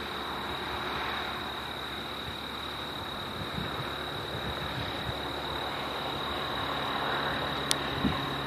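Outdoor evening ambience: a steady hiss with a constant high-pitched whine. A low hum comes in after about six seconds, and there is a single sharp click near the end.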